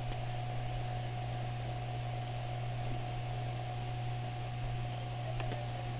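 Faint computer mouse clicks now and then over a steady low electrical hum.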